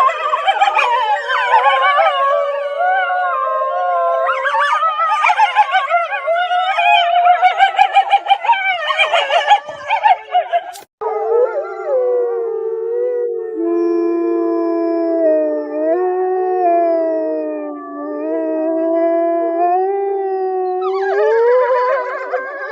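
Wolves howling: a chorus of several overlapping howls rising and falling in pitch, broken off by a sudden cut about eleven seconds in. After it come a few longer, steadier howls, and a full chorus of overlapping howls starts again near the end.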